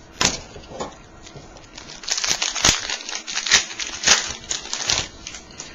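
Foil wrapper of a trading card pack being torn open and crinkled, a few sharp clicks at first and then a couple of seconds of dense crackling.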